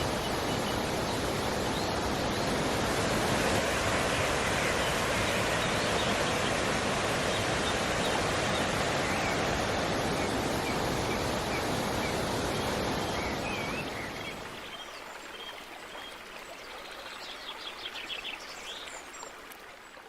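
Steady rushing of a waterfall, with a few birds chirping over it. About fourteen seconds in the water noise drops much lower, leaving fainter water and bird calls.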